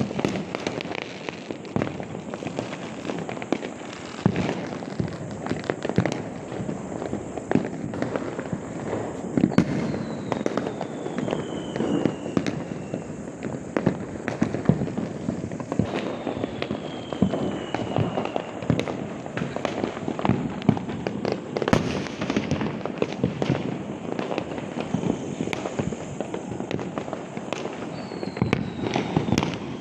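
Fireworks going off continuously: a dense crackle of many firecracker pops and bangs, with a rocket's whistle falling in pitch three times.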